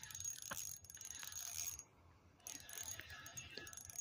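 Fishing reel being cranked to bring in a hooked perch, its gears running steadily, stopping for about half a second about two seconds in, then reeling on.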